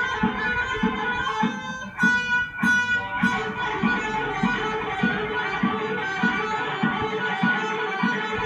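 Electric guitar playing fast picked runs in a speed-picking exercise, over a steady low beat about every 0.6 seconds. There is a brief louder, scratchier flurry about two seconds in.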